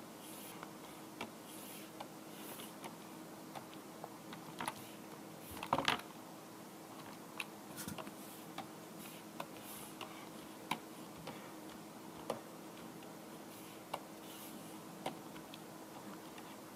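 Faint, irregular clicks of a computer mouse and keys, about one every second or so, over a low steady hum, with a brief louder bump about six seconds in.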